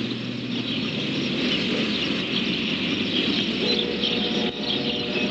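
Freight train cars rolling past: steady wheel-on-rail noise, with a low steady hum that fades and comes back about two-thirds of the way through.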